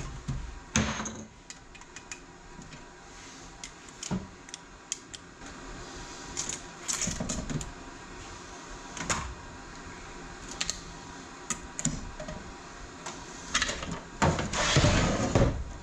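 Scattered clicks, clinks and knocks of metal TH350 transmission parts and hand tools being handled during teardown, with a longer scraping rattle near the end.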